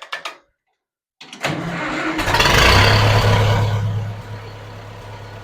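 Massey Ferguson 165 tractor engine being cranked by the starter and catching about two seconds in. It runs up briefly, then settles to a steady idle, freshly refilled with oil after an oil change.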